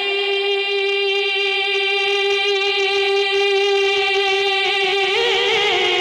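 A man singing a naat into a microphone, holding one long note with a slight waver for about five seconds, then rising in pitch into ornamented turns near the end.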